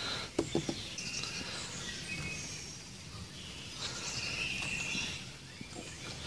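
Birds chirping in short, high calls scattered throughout, over steady outdoor background noise, with a few soft taps about half a second in.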